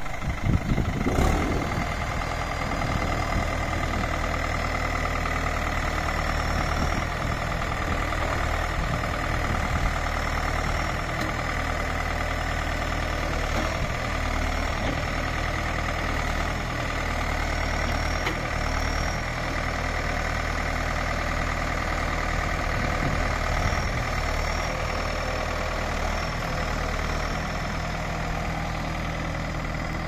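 Crawler tractor's diesel engine running steadily at idle while its front dozer blade is worked.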